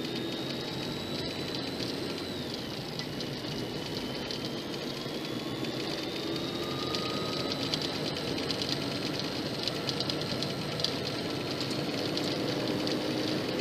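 Cabin noise of a car driving on a snowy road, recorded by its dashcam: steady engine and tyre noise with a faint high whine that climbs, drops about two and a half seconds in, then climbs slowly again, and a light crackle that grows over the second half.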